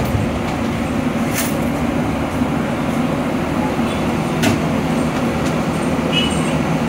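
Steady low rumbling din of a busy street food stall, with two sharp clicks about a second and a half in and again past halfway.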